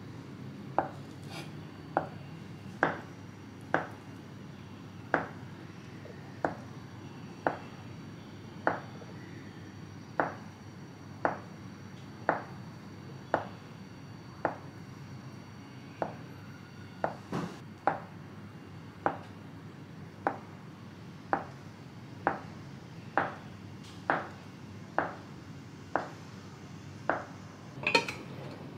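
Chef's knife slicing an avocado on a cutting board, each stroke ending in a sharp tap on the board, about once a second. Near the end comes a brighter clink as an enamel plate is handled over a bowl.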